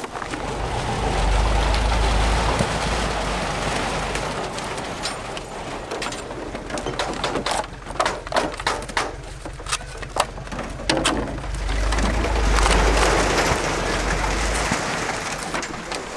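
Plastic bottles crackling and clicking as they are handled and sorted, with a low rumble that swells near the start and again late on.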